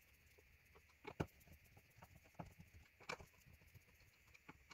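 Faint clicks and small scrapes of a screwdriver turning an electrical outlet's mounting screw, a few separate ticks a second or so apart.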